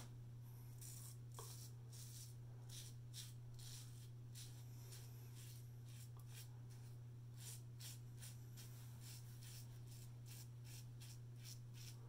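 GEM Pushbutton single-edge safety razor being drawn through lathered stubble: many short, faint scraping strokes, one after another, over a steady low hum.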